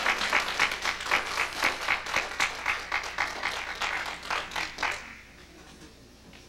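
Small audience applauding, the claps falling nearly in time at about four a second, then dying away about five seconds in.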